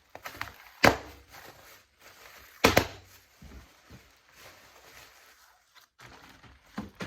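Two sharp thumps about two seconds apart, with fainter knocks and rustling between them, as items are handled and set down.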